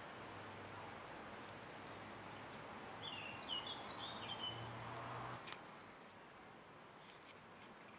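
Faint outdoor ambience with a steady background hiss. A bird calls a short run of high chirping notes about three seconds in. A click a little past halfway cuts the background to a quieter hiss.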